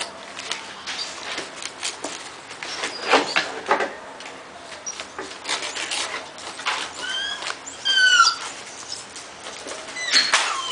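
American Pit Bull Terrier puppies, about four weeks old, rustling and crinkling the newspaper bedding of their wooden whelping box as they move and chew it. A few short, high puppy whines come about seven to eight seconds in, and more high squeaky whines near the end.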